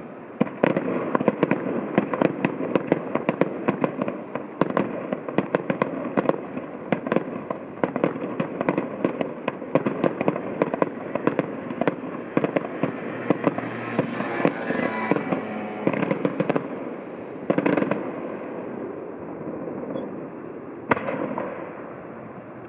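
Fireworks display going off: a rapid, dense string of bangs and crackles for most of the time. It thins out to a few single, spaced bangs near the end.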